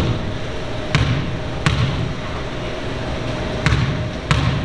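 A basketball bounced four times on a hardwood gym floor, in two pairs, as the shooter dribbles before a free throw. A steady hum runs underneath.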